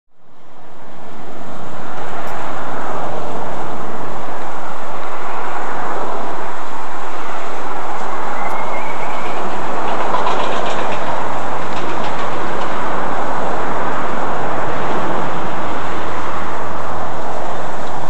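Steady rush of cascading water from a garden water feature, fading in over the first couple of seconds, with a low hum joining near the end.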